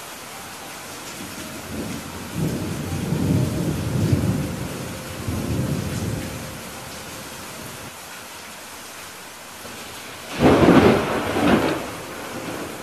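Steady heavy rain with a low rolling rumble of thunder starting about two seconds in and lasting some four seconds. About ten seconds in comes a sharp, louder thunderclap in two quick peaks.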